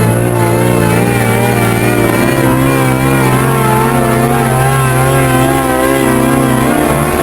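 Loud, continuous distorted electronic sound effect: several pitched tones wavering up and down about twice a second over a steady low drone.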